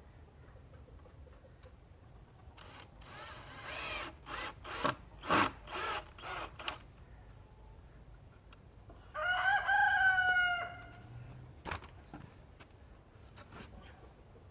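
Chickens clucking in a run of short calls, then a rooster crowing once, a single long call about nine seconds in. A sharp knock follows shortly after.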